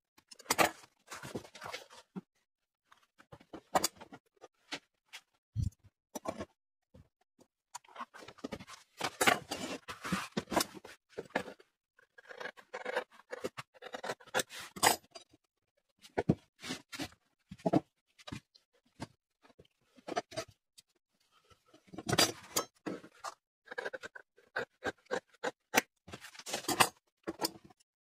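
Steel shears cutting through a sheet of thick leather, in runs of quick snips with short pauses between them.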